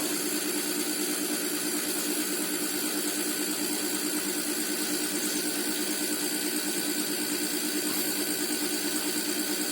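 Air-conditioner compressor converted into an air compressor, running steadily with a hum and a fast, even pulsing as it pumps air into an empty freon tank while the pressure slowly builds.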